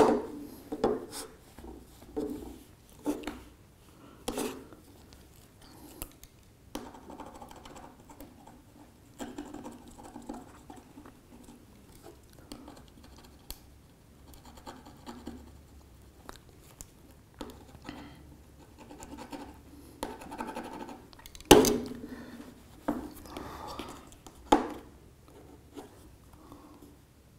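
A metal tool tip scraping over the back panel of a Huawei Nova 3i phone in a scratch test, in many short, uneven strokes broken by small clicks, with one sharp click about 21 seconds in.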